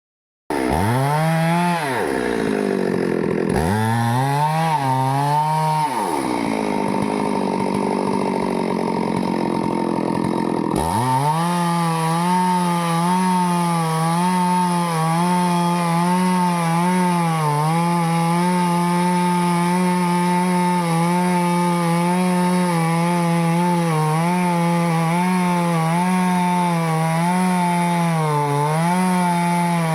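Stihl chainsaw cutting through a teak trunk. It runs at high revs, with its pitch dropping sharply several times in the first ten seconds or so as the chain bogs in the wood, then holds steady with small dips for the rest.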